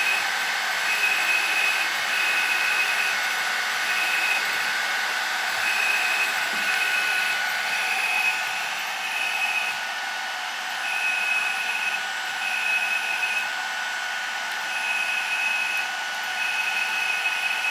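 Electric hydraulic pump of a JX F1650 RC model hydraulic truck crane running with a steady whine, a higher tone cutting in and out every second or so as the crane functions are worked. The pump runs under the radio's mix control, slaved to the crane function channels.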